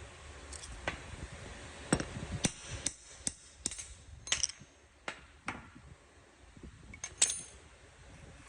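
Irregular sharp metal knocks and clinks, about a dozen, some with a brief metallic ring, the loudest near the end: metal tools and parts being handled and tapped at a workbench.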